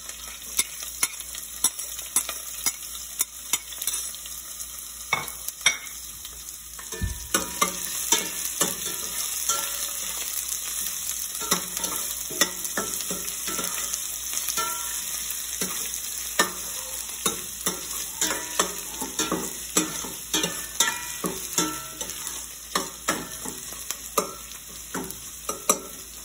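Garlic, ginger and green chillies sizzling in hot oil with whole spices in a stainless steel pot, stirred with a metal spoon that clicks against the pot about once or twice a second over a steady frying hiss. The aromatics are being sautéed until their raw smell goes.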